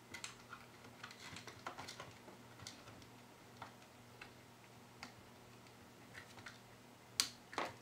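Faint, scattered small clicks and taps of plastic wire connectors and a 3D-printed plastic body being handled as a power connector is fitted onto a circuit board. The clicks come thickest in the first couple of seconds, then sparsely, with a sharper click near the end.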